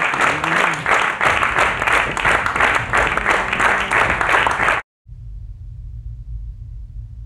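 Audience applauding with dense clapping, cut off abruptly a little under five seconds in. After a brief gap a quieter low rumbling drone begins.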